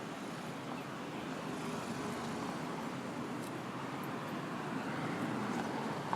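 City street ambience: a steady wash of traffic noise, with a few faint brief ticks.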